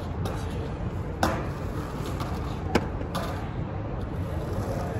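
Skateboard deck and wheels hitting the pavement: two sharp clacks about a second and a half apart, over a steady low street rumble.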